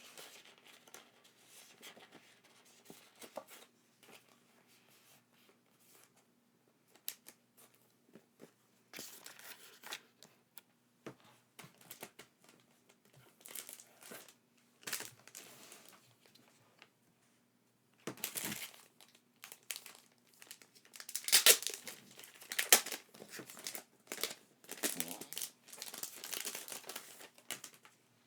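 Packaging being handled, crinkled and torn open: irregular rustling and ripping, sparse at first and louder and busier in the second half.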